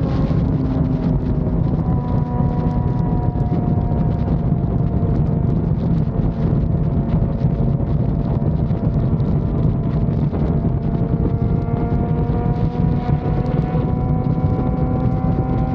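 Yamaha FZ6 inline-four motorcycle engine running at steady cruising revs while riding, its pitch easing slightly at first and climbing gradually over the last few seconds. Heavy wind rumble on the microphone underneath.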